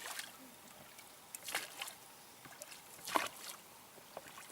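Oars dipping and pulling through the water of a rowboat, two splashy strokes about a second and a half apart, with water sloshing faintly between them.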